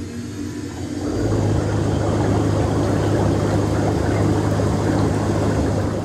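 MTI Air Massage Elite air bath blower running at its reduced starting intensity: a steady whir with a low hum, pushing air through the tub. It steps up louder about a second in, then holds steady.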